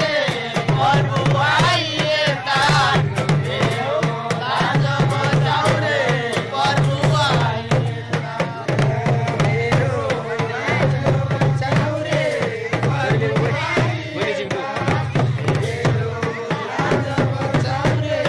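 A group of men singing a folk song together, accompanied by steady drum beats that pause briefly a few times.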